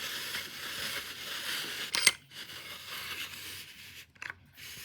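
Steel G-clamp being handled and worked by hand: rubbing and scraping, with one sharp click about two seconds in.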